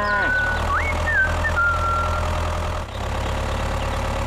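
Steady low engine hum with a steady higher tone over it, and a few high sliding whistle-like tones in the first two seconds. The hum breaks briefly about three seconds in.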